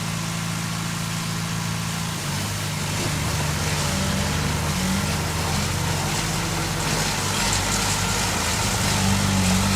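Heavy diesel engine of earth-moving machinery running steadily, its note shifting slightly a few seconds in and again near the end.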